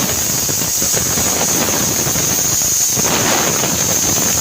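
Onions and ground spices sizzling steadily in hot oil in a pan as the masala base fries.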